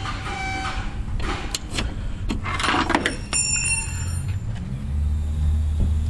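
Short clicks and rattles of a rubber spark plug wire boot being pushed onto a clear plastic inline spark tester, over a steady low hum. A deeper low drone swells near the end.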